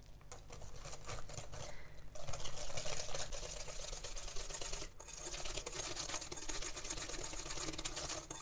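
Wire hand whisk beating curd cheese into a runny egg-and-sugar mixture in a glass bowl: fast, steady clicking of the wires against the glass, louder from about two seconds in, with a brief pause about five seconds in.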